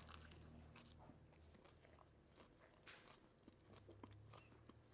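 Faint biting and chewing of a fried vegetarian spring roll wrapped in bitter mustard greens, with scattered soft crunches.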